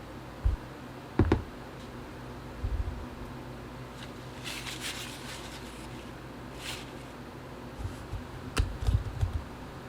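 Small handling noises from parts being worked on at a bench: a few light knocks and clicks, a brief rustling or scrubbing sound about four to five seconds in, and a cluster of soft taps near the end.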